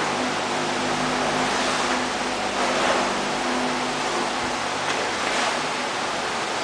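Tin Knocker TK 724 combination crimping and beading machine running steadily: a low motor hum under an even rush of noise.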